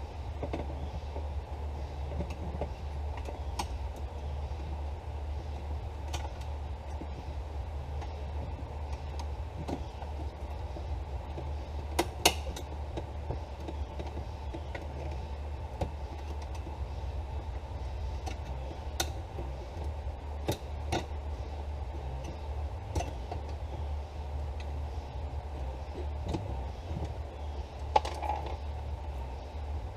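Steady low rumble throughout, with scattered sharp clicks and knocks of hand tools and car trim parts being handled, the loudest about twelve seconds in and again near the end.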